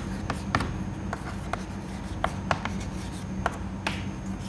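Chalk writing on a chalkboard: irregular sharp taps and short scrapes as letters are written. A steady low hum runs underneath.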